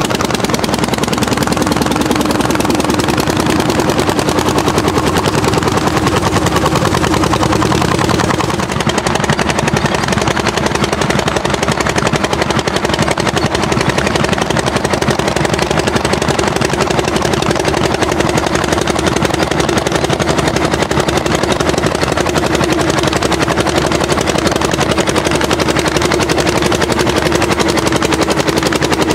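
Orsi Argo hot bulb tractor's single-cylinder two-stroke engine working hard under plough load, its exhaust popping in a rapid, steady beat.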